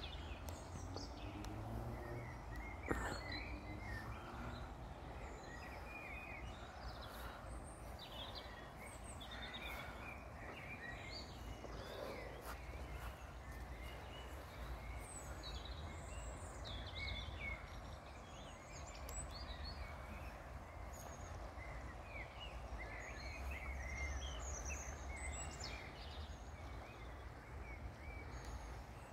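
Small birds singing and calling, many short chirps and trills throughout, over a steady low rumble; a single sharp click about three seconds in.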